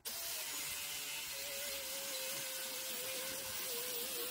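Angle grinder with a cut-off wheel cutting through steel plate. The motor whines steadily over a hiss, its pitch wavering a little as the wheel bites into the metal.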